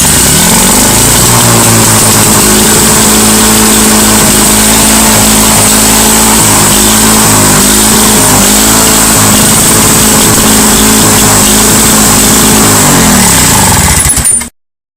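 Lawn Boy Silver Pro mower's 6.5 hp DuraForce two-stroke engine cold-started after priming. It catches at once and comes up to speed within about a second, then runs loud and steady at full throttle, and cuts off suddenly near the end.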